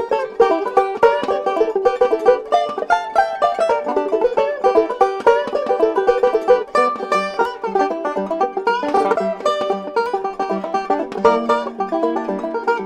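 Background music led by a quickly picked string instrument in a banjo or bluegrass style, a steady stream of fast plucked notes.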